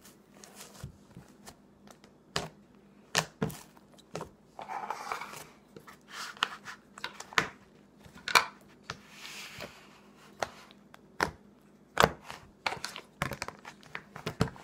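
Thin butter slime being handled and packed into a clear plastic tub, whose lid is then fitted and pressed down: irregular sharp clicks and taps of plastic, with a couple of longer, softer noises in between.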